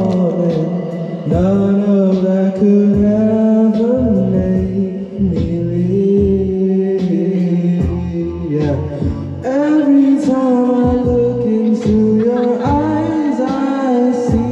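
A man singing karaoke over a backing track, holding long notes above a steady bass beat.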